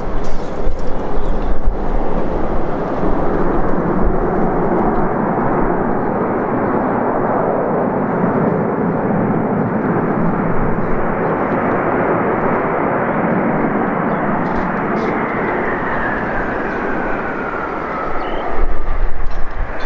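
Boeing 747-400 freighter's four jet engines running with a loud, steady roar on the landing rollout. Near the end the roar eases and an engine whine falls in pitch as the engines spool down. Low thumping comes at the start and near the end.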